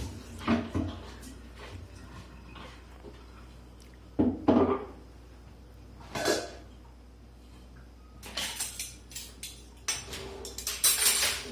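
Kitchen dishes and utensils clinking and clattering as they are handled, in several separate bursts with pauses between.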